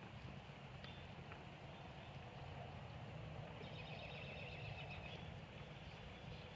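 Faint outdoor evening ambience: a steady low hum under a few short high-pitched chirps, with a rapid high trill of animal calls from about three and a half to five seconds in.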